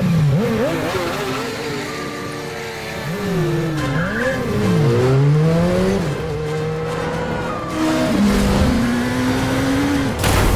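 Motorcycle and car engines revving, their pitch rising and falling again and again as the bikes and cars accelerate and pass, with tyres squealing. A sudden loud crash comes near the end as a car hits the motorcycle.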